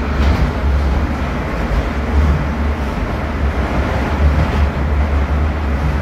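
Moscow metro train running between stations, heard from inside the carriage: a loud, steady rumble with a strong low hum under wheel and tunnel noise.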